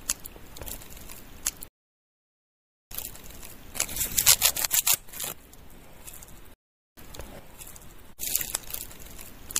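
Green grass stalks being cut by hand with a small blade: a quick run of crisp snipping and leaf rustling about four seconds in, with more rustling of the cut bunch near the end. The sound cuts out completely twice.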